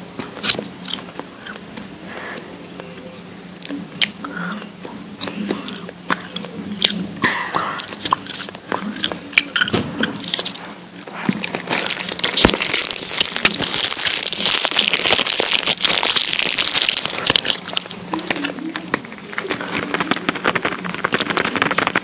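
Close-miked chewing of soft chewing gum: a run of wet clicks and smacks as the mouth works the gum. From about 12 to 18 seconds in a louder, dense crackling rustle takes over.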